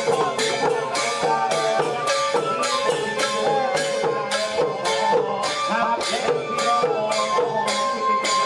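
Thai klong yao long-drum procession band playing a steady march beat, the long drums and hand cymbals striking about twice a second, with a melody line running over the rhythm.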